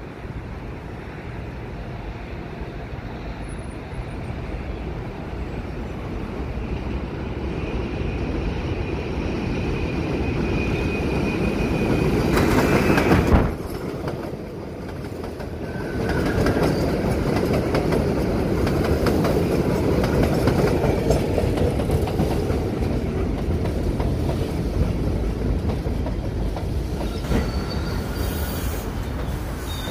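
R62A subway train on a steel elevated line, rumbling louder as it approaches, with thin wheel squeals. After a sudden break about halfway, the cars run close by at full loudness and slow into the station, with high squeals near the end.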